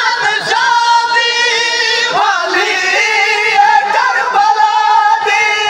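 A man's voice singing a Saraiki noha, a mourning lament, in a high register with long, wavering held notes.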